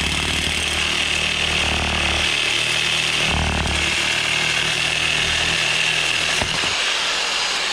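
Power saw running and cutting through steel exhaust pipe with a coarse wood-cutting blade, a steady loud buzzing grind; the blade's teeth are too big for the thin metal.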